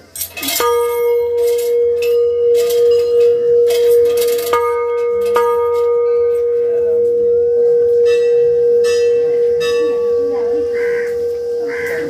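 A temple bell struck three times, once at the start and twice more about four and five seconds in, its deep tone ringing on steadily between and after the strikes. Crows caw near the end.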